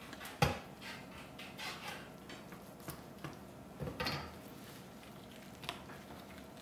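Carving knife knocking against a cutting board while the smoked turkey's wing is worked off at the joint: one sharp knock about half a second in, then softer clicks and a short rustle of handling.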